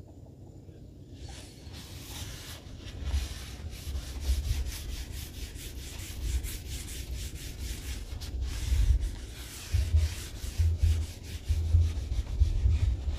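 Wad of paper towel wiping oil across the steel cooktop of a Blackstone griddle in repeated scratchy strokes, with dull low bumps mixed in: spreading a thin coat of grease to season the surface.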